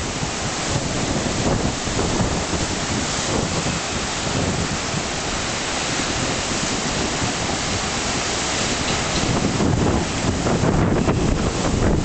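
Rough sea waves breaking continuously on a rocky shore, a steady rush of surf with wind buffeting the microphone. It grows a little louder near the end.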